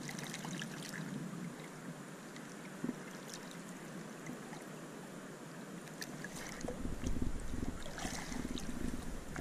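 Faint water lapping and trickling against a kayak hull while a large mulloway is held in the water alongside, with a few small splashes. The water noise grows louder in the last few seconds.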